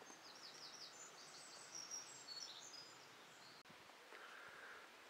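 Faint birdsong: a small bird sings a quick run of high chirping notes through the first half or so, over a faint steady background hiss.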